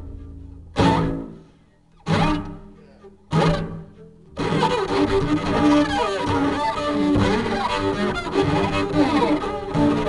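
Improvised free-jazz music: three sharp, separate attacks that ring and fade in the first few seconds, then dense continuous playing full of sliding pitches from about four seconds in.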